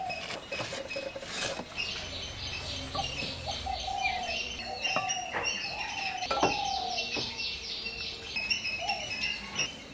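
Birds chirping and calling, with a rapid trill through the middle, over scattered clicks and scrapes of a spoon stirring a thick coconut, flour and syrup mixture in a large metal bowl.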